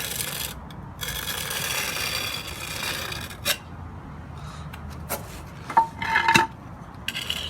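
Trowel scraping across the fresh mortar of a concrete slab patch to clean its edge: a long scrape, then a sharp click and a few knocks with a brief ringing tone about six seconds in.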